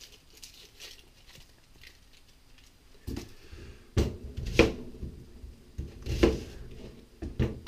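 Onion skin being peeled by hand with faint crackling, then a kitchen knife cutting into the peeled onion on a plastic cutting board, a handful of sharp knocks of the blade against the board from about three seconds in.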